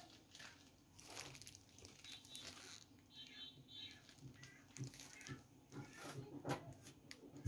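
Quiet room with faint, scattered rustles and light taps of hands handling things; the duplicator is not running.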